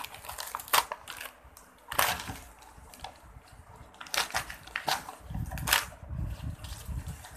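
Wrapping paper being torn and crumpled off a gift box in a series of sharp rips and crackles, with a low rumble of the box being handled on the table about five seconds in.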